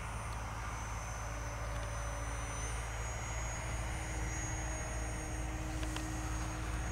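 Small electric RC plane, a Dancing Wings Hobby Savage Bobber running on a 2S battery, flying overhead: a steady drone from its motor and propeller, with a low wind rumble on the microphone underneath.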